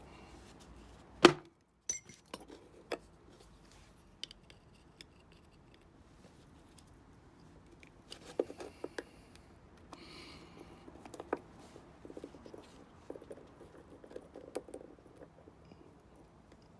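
Small clicks, taps and short scrapes of hand tools working on a small metal part: a Harley circuit breaker being taken apart. One sharp knock about a second in is the loudest sound.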